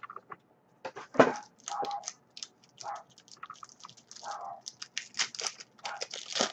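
Foil trading-card pack being crinkled and torn open by hand, with cards rustling and clicking, and a sharp knock about a second in.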